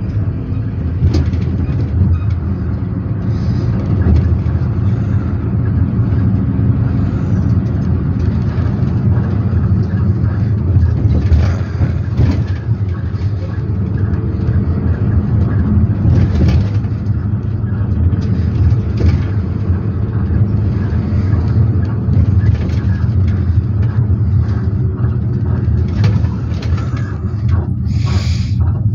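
Inside a moving minibus: steady engine drone and road rumble, with a few short, sharper noises along the way.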